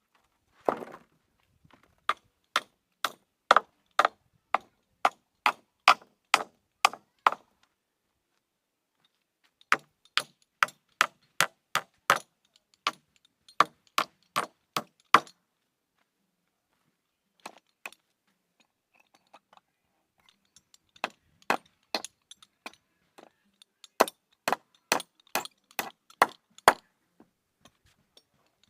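Hammer striking wood at about two blows a second, in three runs of roughly a dozen blows each with pauses between.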